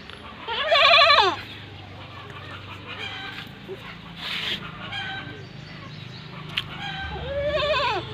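A rooster crowing twice: one loud arched crow about a second in and another near the end, with fainter short animal calls between.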